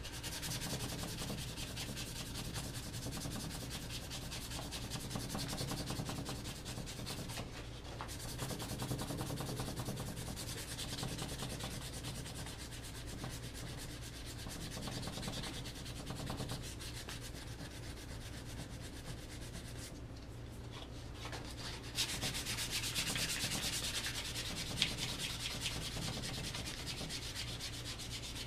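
Hand-sanding a wooden rifle stock with 220-grit sandpaper: quick back-and-forth rasping strokes, leveling dried wood putty over a glued break, with two short breaks in the strokes, about a quarter of the way in and again around three-quarters through.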